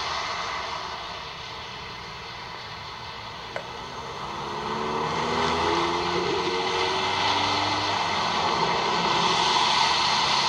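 A car running on wet, slushy pavement, its engine note and tyre noise growing louder about halfway through as it draws nearer.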